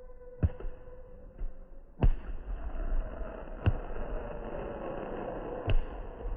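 Fireworks going off: four sharp bangs a second or two apart, the second the loudest, with crackling from the bursts between them.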